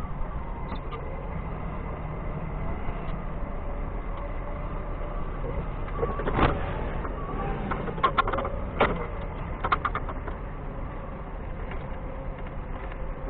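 Doosan 4.5-ton forklift engine running steadily while it unloads bulk bags of sand. A sharp knock comes about six seconds in, and a quick run of clicks and clanks follows a couple of seconds later.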